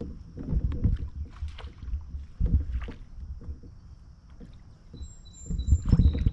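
Water slapping and knocking against the hull of a moving fishing kayak, in irregular low thumps and splashes, with a few brief high tones about five seconds in.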